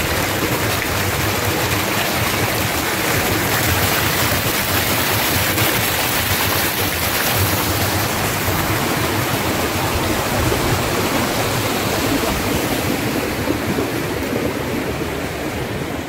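Mountain stream rushing and splashing between boulders: a steady, even hiss of running water.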